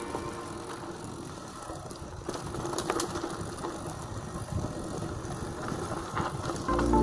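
Mountain bike ride noise on a loose dirt trail: tyres rolling over dirt and gravel, with scattered rattles and knocks from the bike over bumps.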